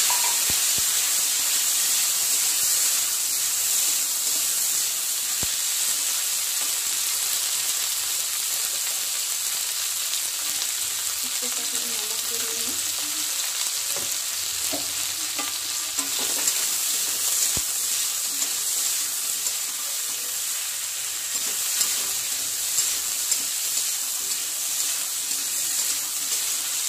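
Cut okra sizzling in hot oil in a steel kadhai while a spatula stirs it. The sizzle is loudest at first, just after the okra goes into the oil, and eases off gradually, with a few sharp clicks of the spatula against the pan in the second half.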